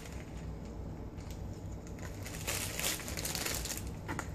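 Plastic sandwich bag crinkling and rustling as raw sausages are handled and put into it, loudest around the middle and again near the end, over a steady low hum.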